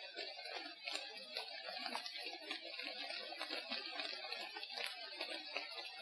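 Amplified forest field recording of dense, continuous crackling and clicking with jumbled, muffled mutter-like sounds underneath. The uploader takes these for Bigfoots chewing sticks, stripping bark and chattering.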